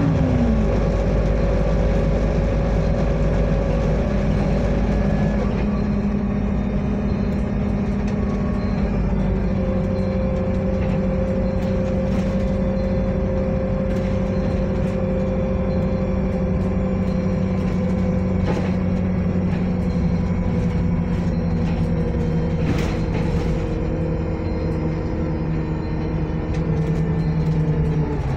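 Bus engine and drivetrain running under way, heard from inside the passenger saloon: a steady drone whose pitch drops at the start and dips again near the end, with a few faint rattles.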